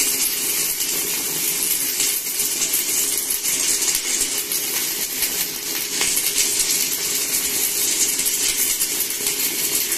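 Stick (MMA) welding arc from a Sanrex 400 A DC inverter welder crackling and sizzling steadily as a No. 8 (about 4 mm) electrode burns at full current on thick steel plate. The arc runs smoothly without sticking or breaking off, which the welder calls running "like water".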